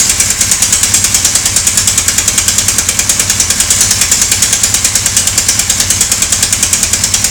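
Kawasaki GPZ 1100 UT air-cooled inline-four engine running steadily with an even, rapid clatter of about eight knocks a second. This is the odd engine noise the owner is puzzled by.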